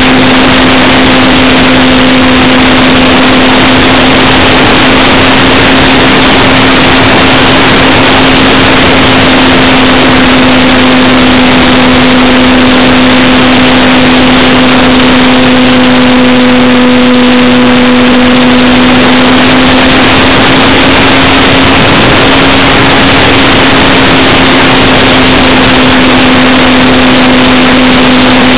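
Parkzone T-28 Trojan RC plane's brushless electric motor and propeller in flight, a steady whine over heavy rushing airflow noise. It is loud and overdriven on the onboard camera's microphone. The whine rises slightly about two-thirds of the way through and drops back near the end.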